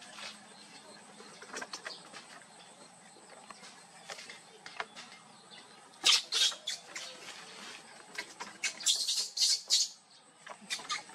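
Baby monkey giving short, shrill squeaks in quick clusters, about six seconds in and again near nine seconds, while a dog noses and stands over it. Before that there is only light scuffling and tapping on wooden decking.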